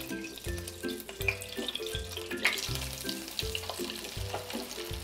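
Breaded chicken pieces deep-frying in an electric deep fryer, the oil bubbling with a fine, steady crackle. Light background music with held notes and a repeating bass runs underneath.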